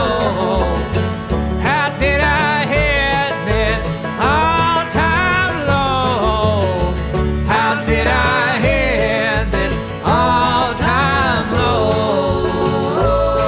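Country-style background music: a wavering melodic lead over plucked strings and a bass line.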